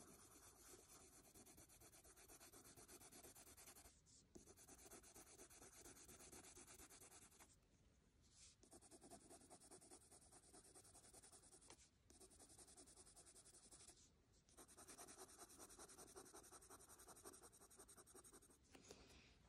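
Faint, fast back-and-forth scratching of a Prismacolor Parma Violet coloured pencil shading on paper, broken by a few short pauses between strokes.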